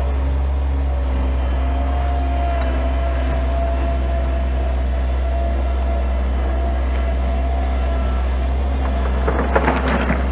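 Stand-on mini track loader's engine running steadily with a steady whine. Near the end comes a short burst of clattering as riprap stone tips from its bucket onto the rock pile.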